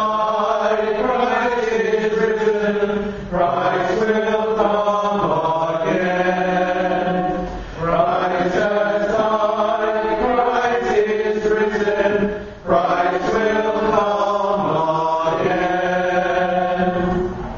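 A priest's solo liturgical chant after the consecration at Mass: a male voice sings on held, steady pitches in four phrases of four to five seconds each, with a short breath between them.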